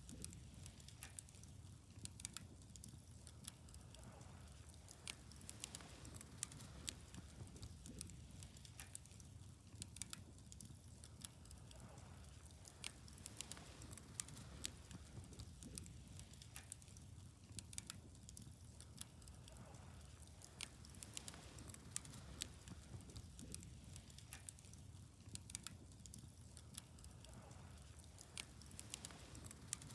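Wood fire burning: faint, irregular crackles and sharp pops of burning wood over a low steady rumble.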